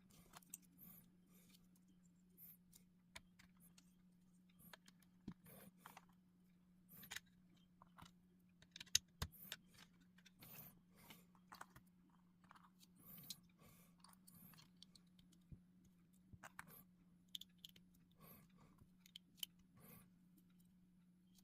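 LEGO plastic bricks being handled and pressed together: quiet, irregular clicks, taps and light rattles, the sharpest about nine seconds in, over a steady low hum.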